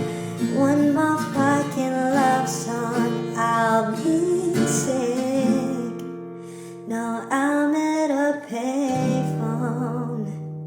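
Nightcore-style sped-up, pitch-raised song: plucked and strummed acoustic guitar under a high vocal line, the music dying away near the end.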